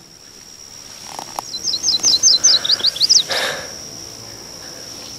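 A small songbird singing a quick run of about eight high chirps over about a second and a half, above a steady high-pitched insect-like whine.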